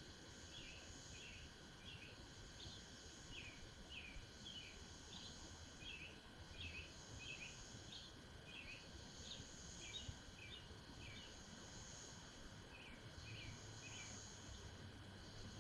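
Faint short bird chirps repeating about twice a second, over a steady high insect trill and a low outdoor background hum.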